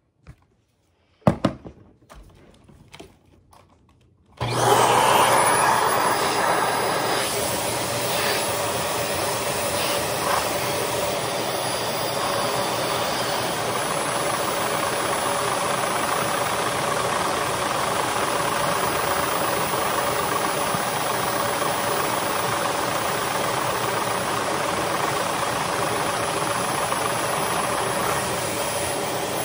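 A few sharp clicks, then about four seconds in a vacuum cleaner switches on suddenly and runs steadily. Its suction drives a Lego three-cylinder butterfly-valve vacuum engine.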